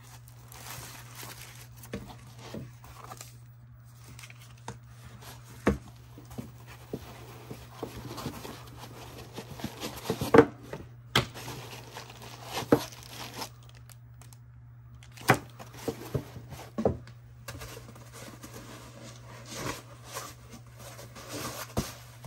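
Unboxing handling noise: plastic packaging bags crinkling and rustling, with scattered sharp knocks and clicks as parts are lifted out of a foam-lined box and set down on the desk.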